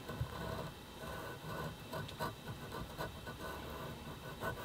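Light, slow strokes of a Swiss-made triangle file scratching across a knife handle. This is a gentle first pass to score an initial line along a tape edge.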